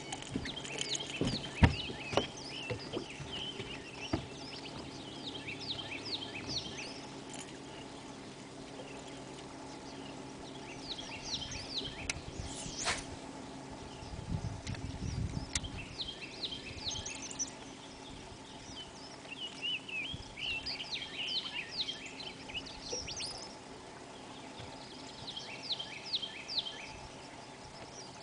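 Birds singing in clusters of quick downward chirps, over a steady low hum, with a few scattered knocks and a brief low rumble about halfway through.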